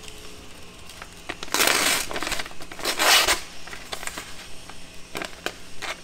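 Knife blade slicing through a hand-held sheet of paper, a rasping rustle twice, with small paper crinkles and clicks between; the edge is only partly sharpened and drags through the paper.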